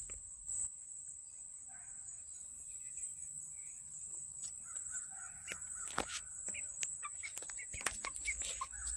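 Young chickens giving short, soft calls, more often in the second half, over a steady high-pitched insect drone, with a few sharp clicks.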